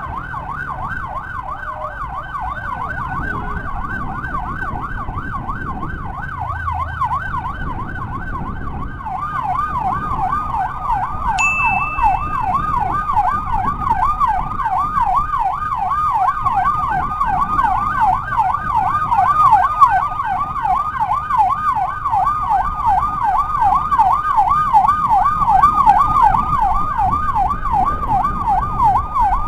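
Electronic emergency sirens in a fast yelp, sweeping up and down about three or four times a second; a second siren layers in and the sound grows louder about nine seconds in. A short high steady beep sounds near the twelve-second mark, over a low rumble of traffic.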